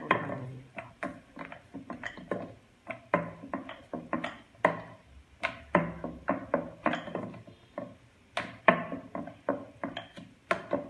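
Wooden rolling pin clacking against a round rolling board while stuffed paratha dough is rolled out: a run of sharp, irregular clacks, two or three a second.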